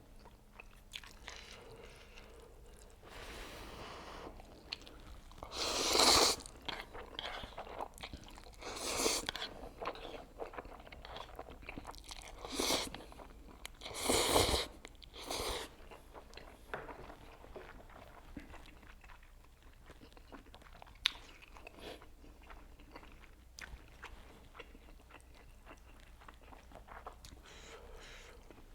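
A person eating instant ramyeon noodles, Buldak fire noodles mixed with Jjapaghetti, close to the microphone: quiet chewing with about five louder eating noises, each under a second, in the first half.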